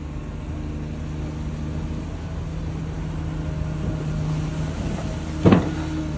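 Snowplow truck's engine running steadily as its blade pushes through deep snow, with a brief louder sound about five and a half seconds in.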